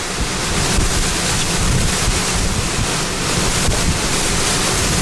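Strong wind blowing across the microphone, a steady loud rushing noise with heavy low rumble.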